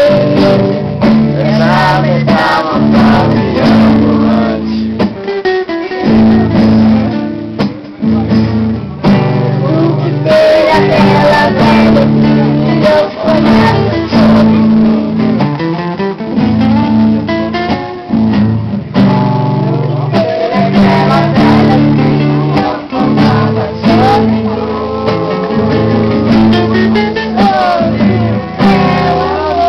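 Two acoustic guitars (Brazilian violões) playing live together, with a man singing into a microphone over them.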